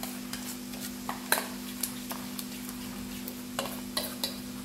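Metal spoon stirring yogurt and spice powders in a stainless steel bowl: irregular clinks and scrapes of the spoon against the steel, over a steady low hum.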